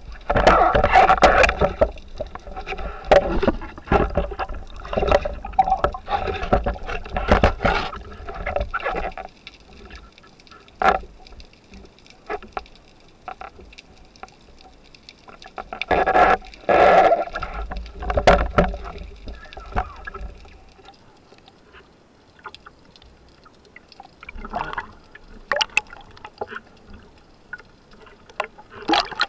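Underwater rushing and gurgling water picked up by a speargun-mounted camera as a free-diver swims up, coming in irregular bursts with sharp clicks and knocks. It goes quieter after about twenty seconds, with a few short splashy bursts near the end as the surface is reached.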